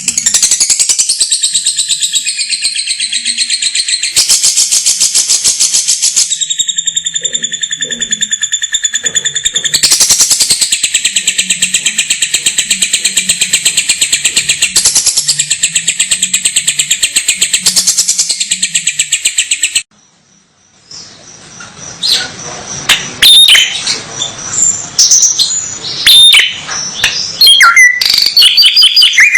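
Songbird song used for training caged birds: a loud, unbroken, very rapid high trill that stops suddenly about twenty seconds in, then after a moment's pause a run of varied, irregular chirps and whistled notes.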